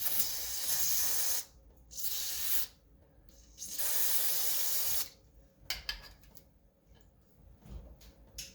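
Aerosol lubricant can hissing in three spray bursts, the last and longest about a second and a half, sprayed into a stuck shower valve cartridge to loosen it. A few light clicks and taps follow.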